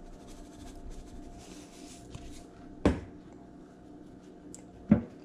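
Faint gritty shaking of seasoning from a plastic shaker over fish fillets, then two sharp knocks about two seconds apart, with a low steady hum underneath.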